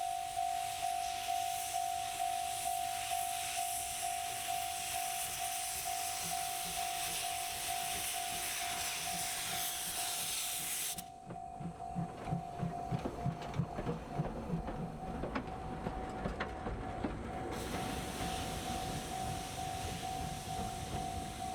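C58 steam locomotive blowing steam from its cylinder drain cocks with a loud hiss as it moves forward. The hiss cuts off about eleven seconds in, giving way to a rhythmic exhaust beat, and returns near the end. A steady ringing tone, pulsing about twice a second, runs underneath.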